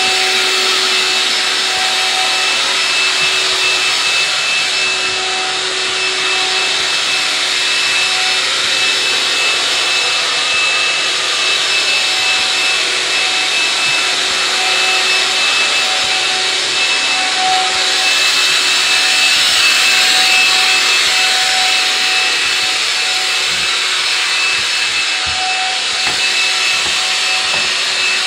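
Corded handheld electric sprayer running steadily as it mists a liquid coating: a high, even motor whine over the hiss of the spray.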